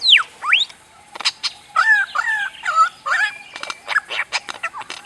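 Bird calls: whistled notes sweeping down and then up, followed about two seconds in by a short phrase repeated three times, with sharp clicks scattered through.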